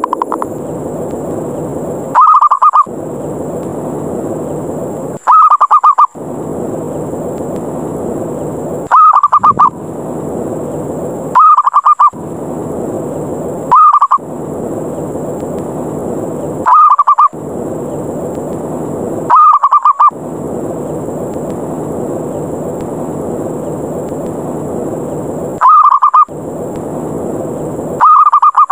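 Zebra dove (perkutut) giving its short, rapid rolling 'ngerot' call again and again, about every two to three seconds: the aggressive challenge call used as a lure to draw other zebra doves down. A steady low rushing noise fills the gaps between calls.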